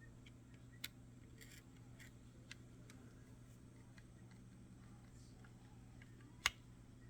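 Scattered small clicks and taps of a screwdriver and small screws against a plastic camera housing, with one sharper click about six and a half seconds in, over a faint steady low hum.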